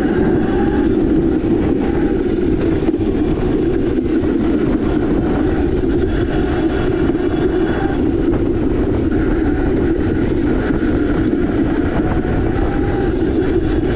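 Electric Crazy Cart riding steadily along a paved path: a constant rolling rumble from the small wheels on the pavement, with a faint wavering whine from the electric motor.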